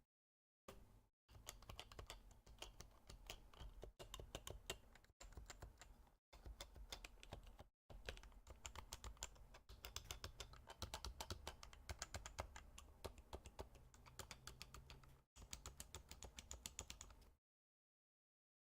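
Stock Happy Hacking Keyboard Professional 2 with Topre switches being typed on in a fast, steady stream of key presses, with a few brief pauses. The typing stops about a second and a half before the end.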